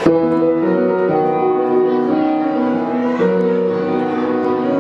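Piano-voiced chords played live on a keyboard controller through a laptop, each chord held and ringing, the first struck right at the start and the chord changing about three seconds in.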